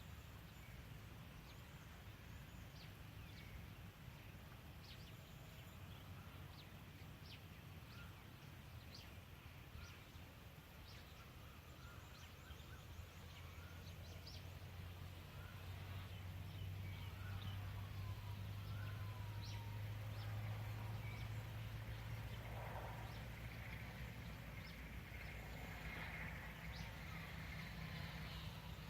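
Quiet outdoor ambience: scattered short, high bird chirps and a few sliding calls over a low steady hum, which grows louder about halfway through.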